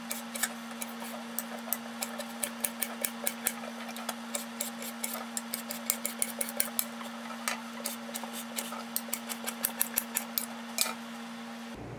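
Rapid, irregular clicking and tapping over a steady hum; both stop abruptly near the end.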